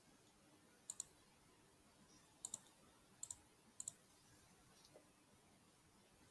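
Faint, sharp double clicks: four quick pairs spread over about three seconds, then a fainter single click, over quiet room tone.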